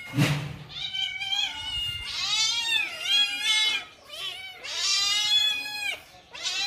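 Kittens meowing repeatedly: about six long, high-pitched meows, each rising and then falling in pitch. A short knock sounds at the very start.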